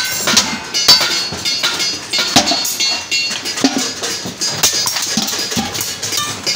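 Irregular sharp metallic knocks and clanks, several a second, each with a brief ringing tone, from work on a galvanized sheet-steel bucket.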